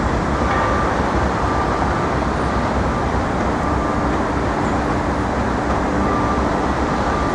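Steady city traffic noise, heavy at the low end, with a faint high tone that comes and goes.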